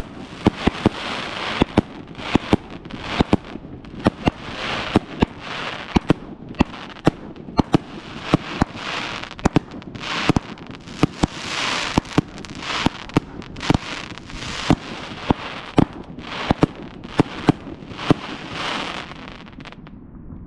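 A 2-inch, 66-shot compound firework cake (Night Owl Big and Beautiful) firing in quick succession: sharp bangs from the launches and hard-hitting breaks, about two a second, over a dense noisy rush. The shots stop shortly before the end.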